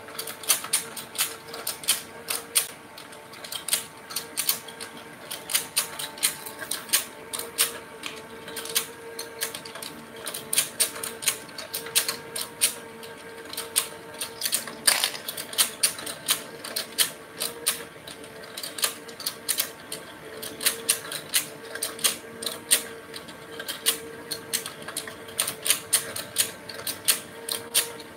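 Electric fishing-game toy running: its rotating pond of plastic fish keeps up a fast, irregular clicking and clattering, over a steady hum, with one louder click about halfway through.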